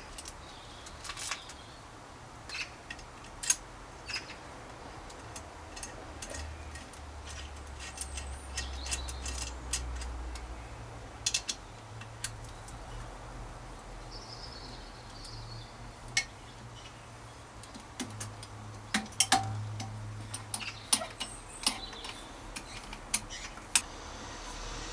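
Scattered, irregular metallic clicks and clinks of bicycle parts and tools being handled during reassembly of the fork, headset and stem, over a low steady hum.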